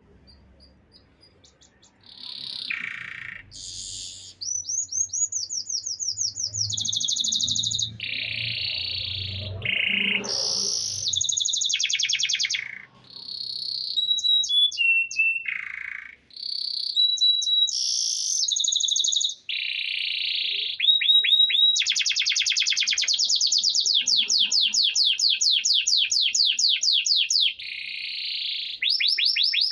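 Copper canary singing a long, varied song of rapid trills and rolls, starting about two seconds in. Long stretches of fast repeated notes fill the second half.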